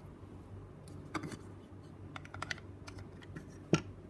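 Light clicks and taps of hard plastic as a white plastic model-aircraft display stand and its base are handled, with one sharper knock near the end, over a faint steady low hum.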